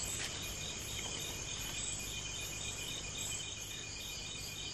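Crickets chirping in a steady chorus of rapid, evenly repeating pulses, with a second, higher insect call pulsing above it.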